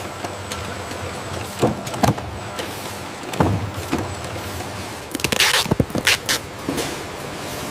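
Packing-line machinery running with a steady hum, broken by clacks and thuds of boxes and mechanisms. A cluster of short noisy bursts comes about five to six seconds in.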